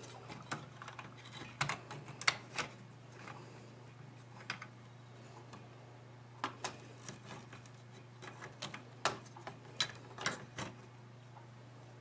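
Scattered sharp clicks and clacks of small hard objects, coming in irregular clusters, over a steady low hum.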